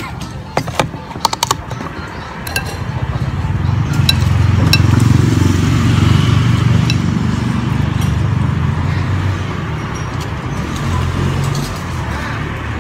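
A few light clinks of a spoon and chopsticks against a noodle bowl in the first second or so, then a low engine rumble that builds about three seconds in and carries on, as of a vehicle running close by.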